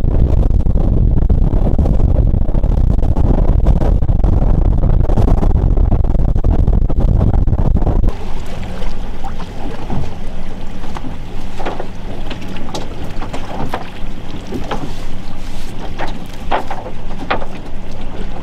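Boat running across open water, a heavy steady rumble with wind rushing on the microphone. About eight seconds in it cuts abruptly to a lighter sound: a steady low hum with scattered short, sharp higher sounds.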